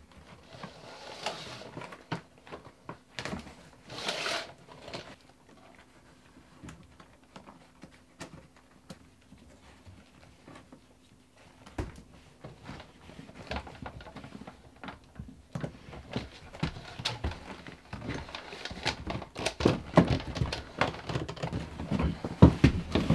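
Scattered clicks, scrapes and rustles of a steel electrician's fish tape being fed and pulled through a wall cavity and of hands working at an electrical box. Sparse and quiet for the first half, busier and louder from about halfway on.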